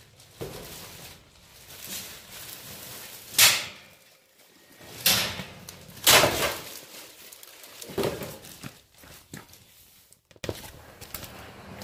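Bags and boxes being handled and set down: irregular thuds with rustling, the loudest a few seconds in and again around the middle.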